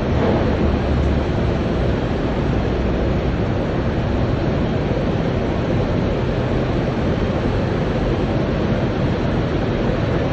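Loud, steady industrial noise of a steel plant's furnace area, with no separate crashes or knocks standing out.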